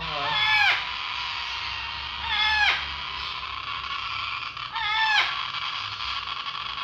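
Hand-reared parrot chicks giving loud, drawn-out begging calls while being syringe-fed, three calls about two seconds apart, each dropping in pitch and then levelling off.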